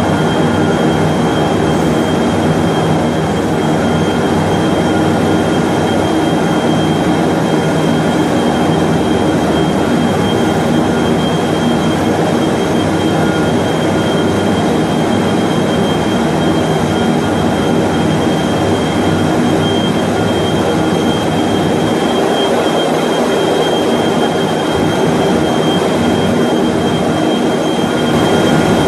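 3200 mm copy-paper machine running, its dryer section's cylinders turning: a loud, steady mechanical noise with a thin high whine over it.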